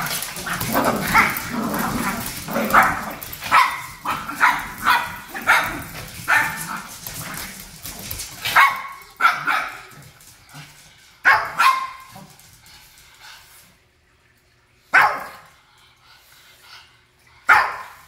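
Japanese Chin dogs barking at each other while play-fighting. There is a quick run of barks, about two a second, for roughly the first half, then single sharp barks with pauses of a second or more between them, the last one near the end.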